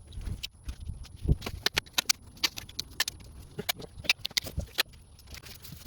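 Masking tape being pulled off the roll and pressed around a car headlight: a run of irregular sharp clicks and crackles, several a second, with a few dull thumps.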